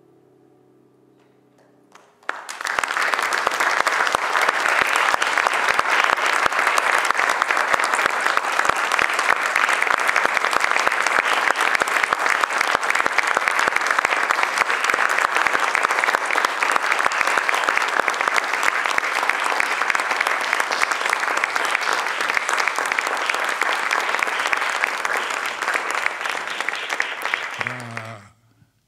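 The last notes of a grand piano fade away, then an audience applauds for about twenty-five seconds, starting about two seconds in and stopping abruptly near the end.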